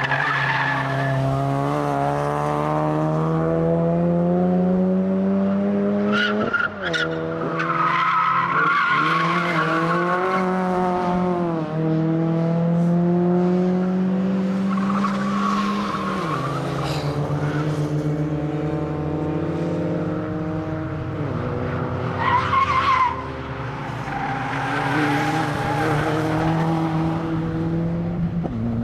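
Hyundai Getz hatchback engine driven hard. Its pitch climbs steadily and then drops suddenly, four times over. Tyres squeal in several bursts through the corners.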